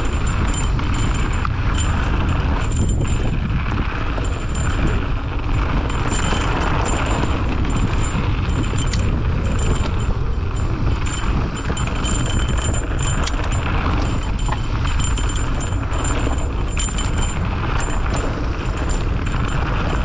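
Mountain bike riding downhill on a trail: a steady rush of tyre, rattle and wind noise with scattered clicks and knocks.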